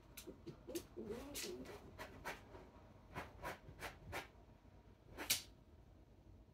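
A Maltese dog sniffing hard in short, irregularly spaced bursts while searching for its ball, with a faint wavering whine about a second in.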